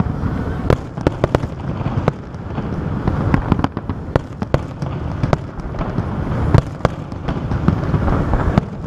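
Aerial fireworks display: an irregular string of sharp bangs and crackles, several a second, over a continuous low rumble of bursting shells.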